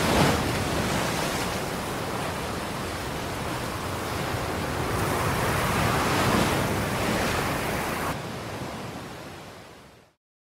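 Ocean surf washing in, an even rushing noise that swells and ebbs, then fades out near the end.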